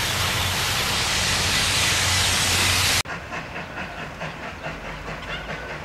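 Steam locomotive: a steady hiss of escaping steam, then an abrupt cut about three seconds in to a quieter passing train with a faint, even rhythmic beat.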